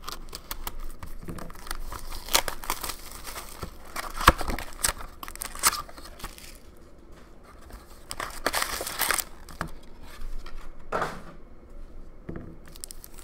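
Plastic shrink-wrap on a box of hockey card packs being slit with a hobby knife and torn off, crinkling and tearing in irregular bursts, with a few sharp clicks about four and five and a half seconds in as the box and packs are handled.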